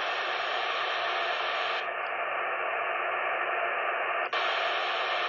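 CB radio receiver hissing with static from its speaker, an open channel with no voice on it. The hiss turns duller about two seconds in and brightens again with a short click about four seconds in.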